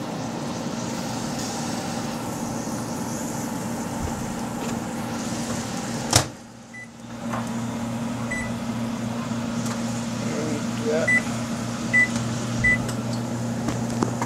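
Microwave oven humming, with a sharp click a little past six seconds in and a short drop in the hum, then four short keypad beeps as its buttons are pressed.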